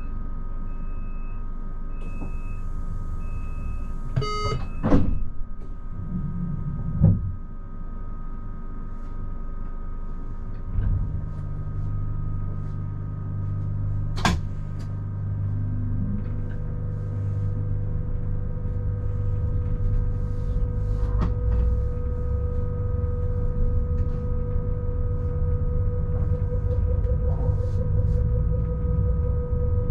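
Cab of an SBB ICN tilting electric train pulling out of a station. Over a steady electrical hum, short repeated beeps and a brief chime come first, then two knocks like doors shutting. About 11 s in a low rumble starts, and a steady motor whine rises near the end as the train begins to move.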